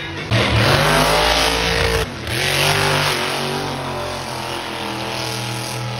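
Monster truck engine revving hard. It comes in suddenly about a third of a second in, breaks off briefly near two seconds, revs up again, then settles into steadier, lower running.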